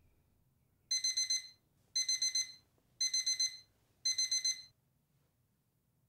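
Digital alarm clock beeping: four bursts of rapid, high-pitched beeps about a second apart, then it stops.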